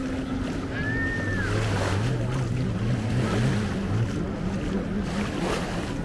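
Surf washing on a beach, with wind on the microphone and a steady low hum underneath. A short high whistle-like tone rises and falls about a second in.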